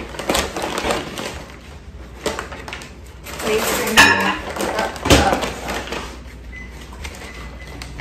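Paper flour bag rustling and crinkling as hands dig into it, with two sharp knocks about four and five seconds in.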